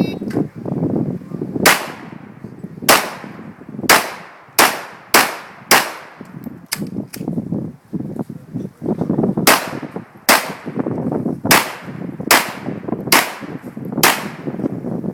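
.45-calibre Para pistol fired in a timed string: about twelve sharp shots, six at roughly one per second, then a pause of about three seconds, then six more at a similar pace.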